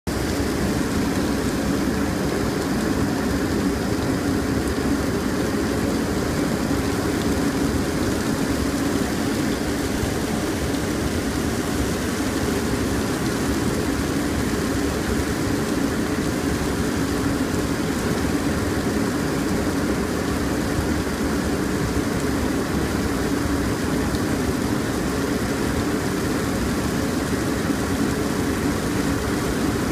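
Steady cockpit noise of a Beechjet 400XP twin-turbofan business jet on approach in heavy rain: airflow and engine noise with rain on the windshield, even and unbroken.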